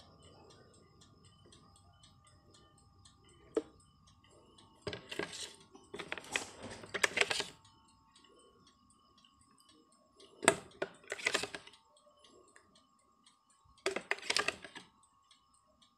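Small metal egg-tart tins clinking and clattering against a metal baking tray in several short bursts, each about a second long, over a faint steady hum.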